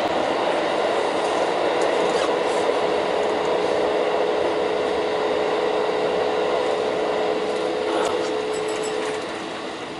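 Electric commuter train running, heard from inside the driver's cab: a steady rumble of wheels and running gear with a steady mid-pitched tone through most of it, easing slightly near the end.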